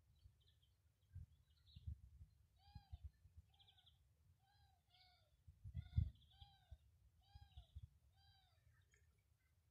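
A cat meowing repeatedly: a run of about eight short rising-and-falling mews, a little over half a second apart, with low bumps on the microphone beneath.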